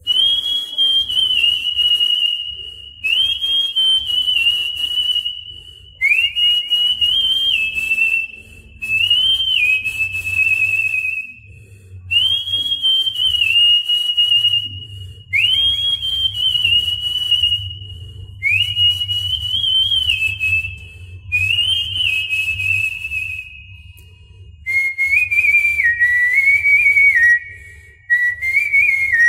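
A person whistling a melody into a handheld karaoke microphone, in about ten phrases that each swoop up and then hold, with short breaks between them. The last two phrases are lower in pitch.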